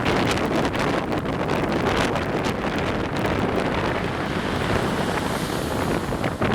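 Strong wind buffeting the microphone: a loud, steady rumble broken by many short gusty thumps.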